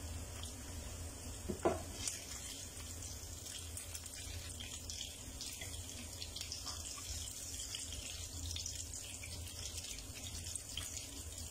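Kingfish pieces shallow-frying in hot oil in a frying pan: a steady sizzle full of fine crackles. One brief louder knock comes about a second and a half in.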